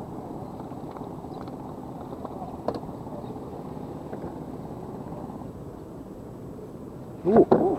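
Steady outdoor background noise with a single small click, then a short loud burst of a person's voice near the end.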